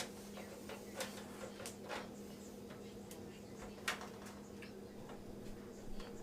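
Scattered light clicks and taps as a motherboard is handled and set into a PC case, about five sharper ones standing out, over a steady low hum.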